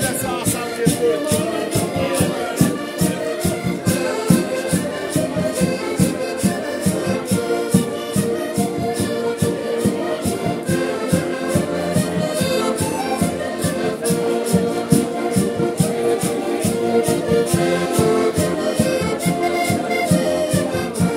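Several button accordions playing a Portuguese traditional tune together, chords and melody held over a steady percussion beat of about three strokes a second.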